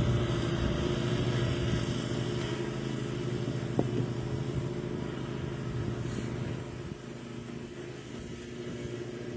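Steady motor or engine hum at a constant pitch, which drops somewhat in level about seven seconds in.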